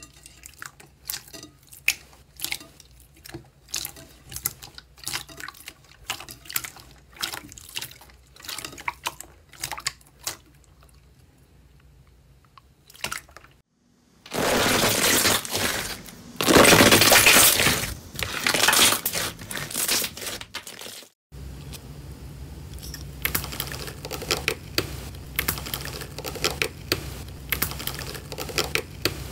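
Clear 'fake water' slime pressed and pulled by fingers in a bowl, giving scattered soft wet clicks and pops. About halfway through comes a louder stretch of dense crackling as a layered green slime is squeezed by hand. After that comes quick crinkling and tearing as a pick pokes through aluminium foil wrapped over slime, over a low steady hum.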